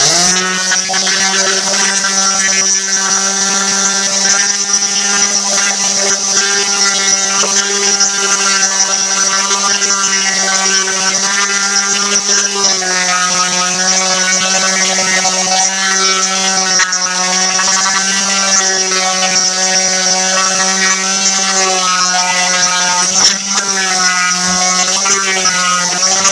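Black+Decker random orbital sander running steadily on a rusted steel shovel blade, sanding off the rust, with a loud electric motor hum and a high whirr. Its pitch drops slightly about halfway through.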